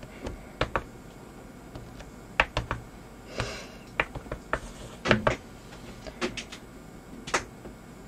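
A dozen or so light, irregular taps and clicks of a small round object being dabbed in paint and pressed onto paper on a craft mat to print small circles, with a brief soft rustle a little after three seconds.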